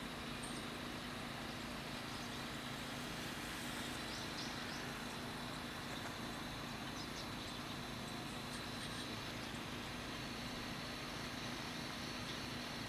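Steady outdoor background noise with a low hum, and a few faint short high chirps about four to five seconds in and again around seven seconds.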